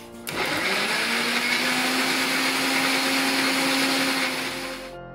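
Preethi Blue Leaf Platinum mixer grinder running with its filter juice jar, blending peeled oranges into juice. The motor spins up with a rising whine, runs steady and loud, and switches off just before the end.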